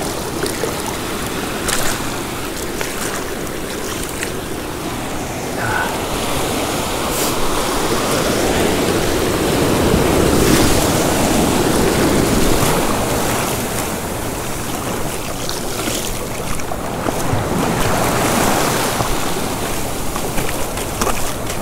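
Ocean surf washing up the beach and around the legs of someone standing in the shallows, with wind noise on the microphone. The wash swells louder about halfway through, then eases.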